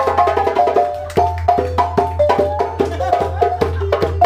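Lively instrumental music: a quick melody of short, bright notes over rapid drum and wood-block hits, with a steady low hum underneath.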